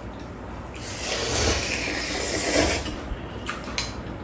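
Ramen noodles slurped from chopsticks: a long noisy slurp starting about a second in and lasting about two seconds, followed by a few light clicks near the end.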